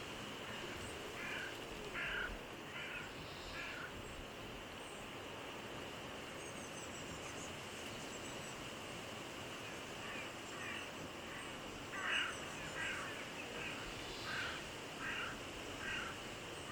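Short, harsh bird calls in two bouts, about four in the first few seconds and a quicker run of about a dozen in the second half, over a steady outdoor hiss.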